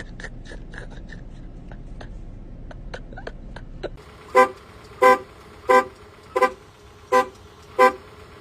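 A car horn pressed by a dog, sounding in short, evenly spaced beeps about one every 0.7 seconds, starting about four seconds in. Before that there are only faint quick clicks or chirps.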